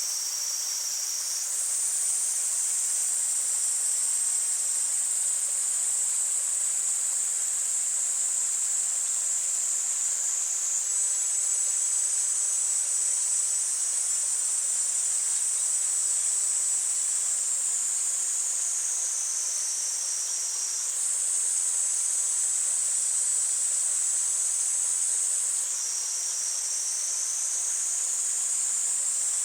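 Cicadas calling in a dense, steady, high-pitched chorus, its pitch shifting abruptly a few times, over the steady rush of a mountain stream.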